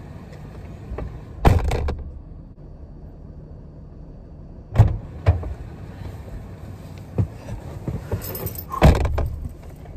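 Thumps of a Toyota 4Runner's driver door shutting about a second and a half in, with the cabin sound muffled until the door opens again with a couple of knocks near the middle; near the end, keys jangle and there is another thump.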